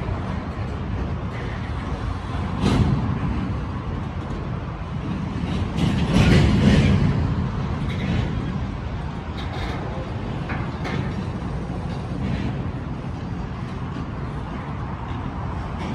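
Double-stack container freight train rolling past as it slows to a stop: a steady rumble of wheels on rail, with sharp clanks and knocks every second or two. The loudest stretch is about six to seven seconds in.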